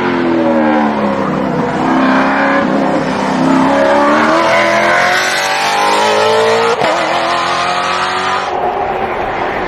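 GT race car engines running hard on track, several at once. Their pitch drops over the first couple of seconds as they brake and downshift, then climbs as they accelerate, with an abrupt break about seven seconds in.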